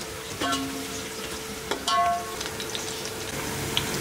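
Sliced onions and green chillies sizzling in hot oil in an aluminium pot, being fried to light golden. A metal slotted spoon stirs them and clinks against the pot twice, each clink ringing briefly.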